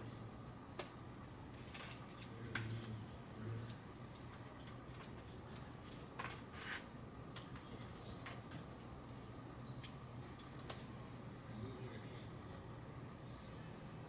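Crickets chirping steadily, a high, even pulsing note repeating several times a second, with a few light clicks scattered through.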